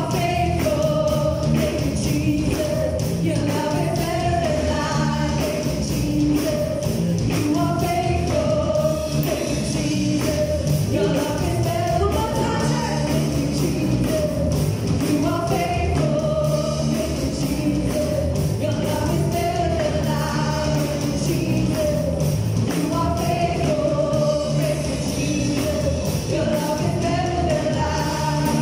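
Live church worship band playing an upbeat worship song: several singers carry the melody over a full band with keyboard and drums keeping a steady beat.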